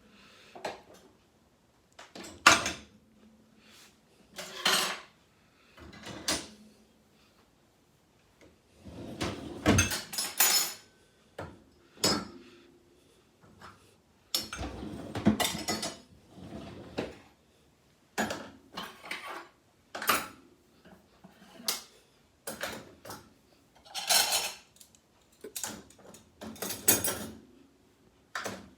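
Dirty pots and dishes clattering as they are loaded into a dishwasher, in irregular knocks and clinks with short pauses between.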